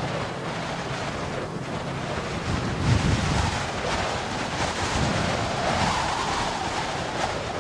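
Wind blowing hard over open snow, a steady rush that swells in gusts about three seconds in and again near six seconds, with low rumbling buffets on the microphone.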